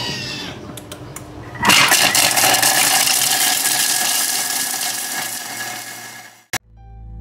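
Vorwerk Thermomix running its blade at top speed (setting 10) for about five seconds, a loud, steady whirring grind that cuts off abruptly near the end. A few clicks come before it starts.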